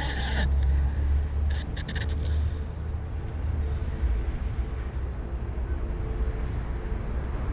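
Steady low outdoor rumble with a faint steady hum, and a few brief clicks about one and a half to two seconds in.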